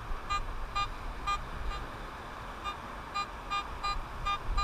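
Handheld metal-detecting pinpointer (Garrett Pro-Pointer) beeping in short, evenly spaced pulses, about two a second with a brief pause near the middle, as it is held over a buried target in the dig hole.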